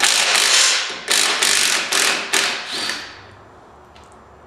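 Cordless impact driver with a 5/8 socket hammering the U-bolt nuts off a golf cart's rear leaf spring. It runs in about three bursts over the first three seconds, then stops.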